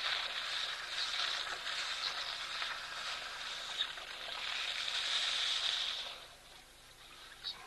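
Outdoor ambience: a steady high hiss that drops away about six seconds in, then a short high chirp near the end.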